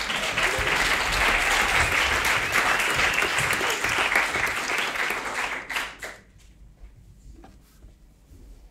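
Audience applauding, a dense patter of many hands clapping that dies away about six seconds in, leaving a few faint scattered clicks.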